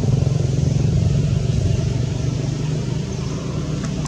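A motor engine running steadily with a low hum. A faint click sounds near the end.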